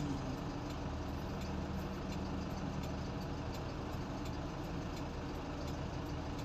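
Engine running steadily, a continuous low hum with no change in pitch.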